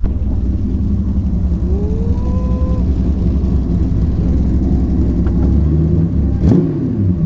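Supercharged engine of a Chevy II Nova drag car idling loudly with a lumpy, fast-pulsing rumble. About six and a half seconds in, a quick throttle blip sends the pitch up and back down.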